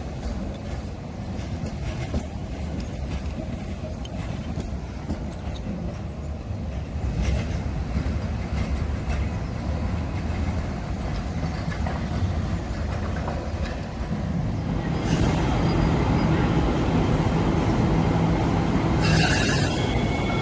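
Hong Kong Light Rail Phase 1 light rail vehicles running on the track with a steady low rumble. About fifteen seconds in the sound gets louder as a light rail train moves along a station platform.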